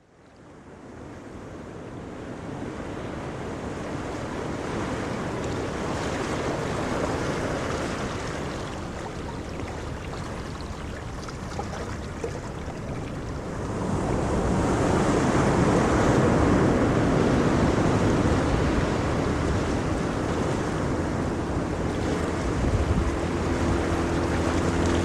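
Ocean waves rumbling in a continuous rush of surf, fading in over the first couple of seconds and swelling louder about halfway through. A low steady hum joins in near the end.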